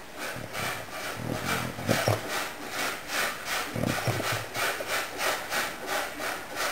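Sleeping English Cocker Spaniel breathing in quick, rasping puffs while dreaming, about three to four a second, with a couple of low muffled sounds from the dog about two and four seconds in.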